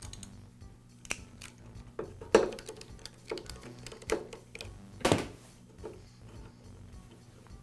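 Screwdriver and hands working the throttle cable clamp screw loose on a plastic lawn mower primer base: scattered light clicks and knocks of metal on plastic, the loudest about two and a half and five seconds in, over a faint steady hum.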